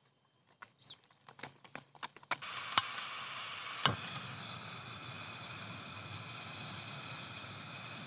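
Scattered raindrops dripping, then a steady rain hiss that starts suddenly a couple of seconds in. Two sharp knocks stand out just after it begins, and a bird gives two short high chirps about halfway through.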